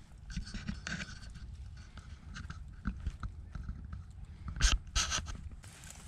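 Cat eating minced beef from a plastic tray, with quick wet chewing and smacking clicks. Two louder brief scrapes about four and a half to five seconds in.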